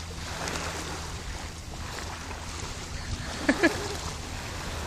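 Steady wind and water noise as a kayak is paddled through shallow water, with two brief vocal sounds about three and a half seconds in.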